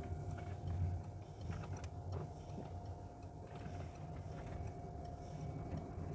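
Low, steady rumble of a van's engine and tyres heard from inside the cabin while driving slowly, with a faint steady whine and a few faint ticks.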